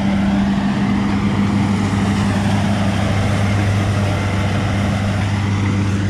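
Rice combine harvester running steadily, its engine a deep, even hum.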